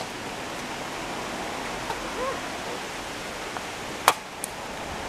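Steady outdoor hiss, with one sharp metallic click about four seconds in and a fainter one just after, as a box-shaped find stuck to a magnet-fishing magnet is handled.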